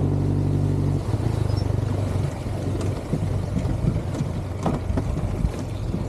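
Jet boat motor running steadily, its sound turning uneven and pulsing about a second in and then dropping lower. Several sharp knocks against the boat follow in the second half.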